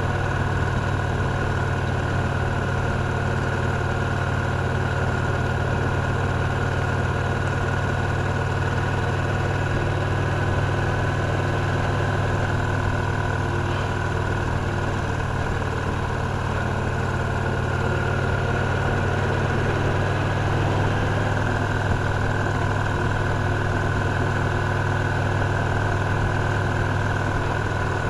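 Victory Cross Roads Classic LE motorcycle's 1700 cc V-twin engine running steadily while riding along, its speed and level holding even throughout with no revving or shifting heard.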